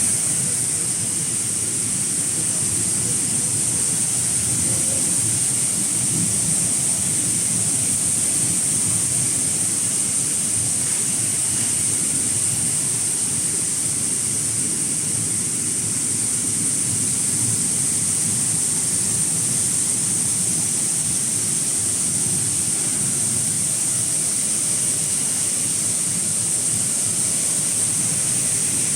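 Industrial air-bubble washing machine running, its tank of water churning and rushing steadily under a constant high hiss.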